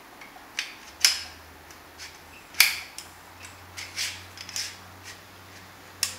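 Sharp metal clicks and knocks, about eight at irregular spacing, the loudest about two and a half seconds in: an anodized-aluminium tiller steering arm with stainless snap buttons being adjusted and seated on a trolling motor's T-bar.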